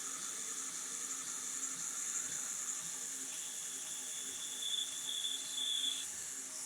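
A 1x30 belt sander with a 600-grit aluminum oxide belt running with a steady high hiss as a knife edge is drawn across it edge-trailing. A thin high whine joins from about three seconds in and stops near six seconds. The pass is smoothing off the teeth left by the coarser diamond belt.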